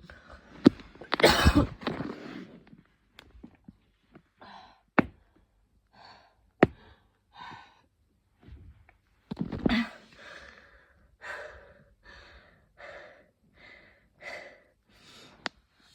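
A woman in a coughing fit: one hard cough about a second in, then gasping, heavy breaths and short coughs in a quick run through the second half, with a few sharp clicks.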